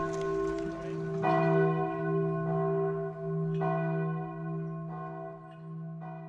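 A church bell tolling, struck about every two and a half seconds. Each stroke rings on over a steady low hum.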